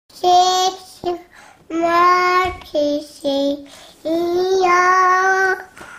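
A toddler girl's high voice singing wordless, drawn-out notes in a sing-song way: about five held notes, the fourth the longest at about a second and a half.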